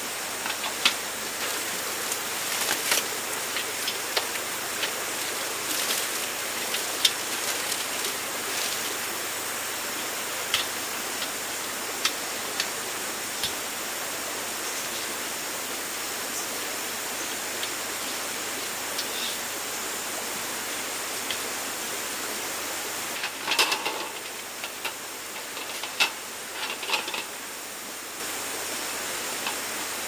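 Steady rush of a shallow rocky stream, with scattered light clicks and knocks from a metal folding camp table being unfolded and assembled. A denser flurry of clinks comes a little over three quarters of the way through.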